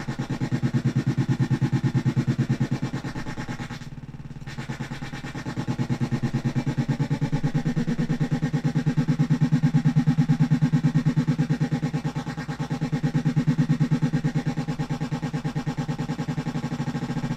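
Home-built analog modular synthesizer playing a pulse wave with pulse-width modulation through a speaker: a really harsh, low buzzing tone with a rapid even pulsing. It swells and dips in loudness as the knobs are turned, dropping back briefly about four seconds in.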